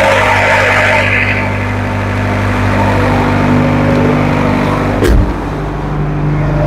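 Refurbished Tata 709 four-cylinder diesel engine of a 40 kVA silent generator set running steadily at constant speed after an automatic start. There is a single knock about five seconds in.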